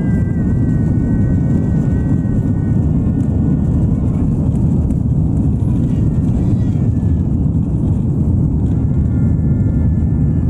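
Airbus A330-300 cabin noise during the takeoff roll: engines at takeoff thrust under a loud, steady deep rumble, with a high thin engine whine over it at the start and again near the end.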